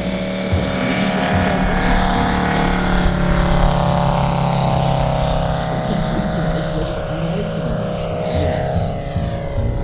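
Five-cylinder Valach VM-250 R5 radial engine of a half-scale RC Bücker Jungmeister running steadily at flight power on a low pass. Its pitch falls in the second half as the plane flies by and away.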